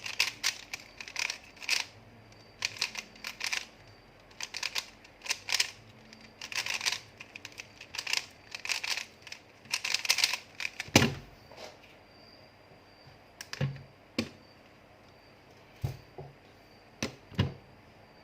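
Irregular bursts of sharp clicking and rattling, followed from about eleven seconds in by a few separate dull knocks.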